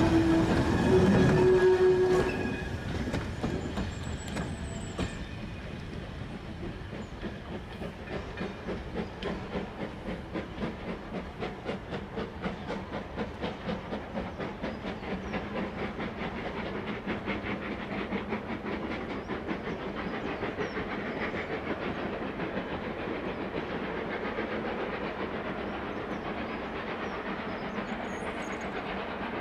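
A steam locomotive's whistle sounds and cuts off about two seconds in. The train then runs on with a steady rhythmic beat of about two a second, quieter than the whistle.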